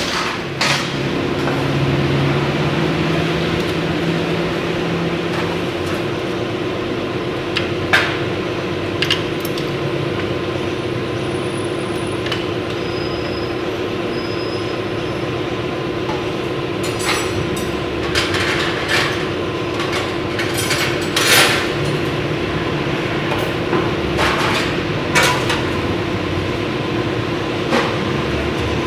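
Steady mechanical hum with scattered sharp metallic clinks and knocks of hand tools, several of them in the second half.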